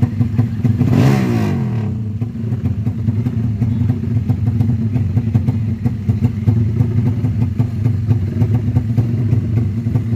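Motorcycle engines running steadily at low revs, with one motorcycle passing close by about a second in, its pitch falling as it goes.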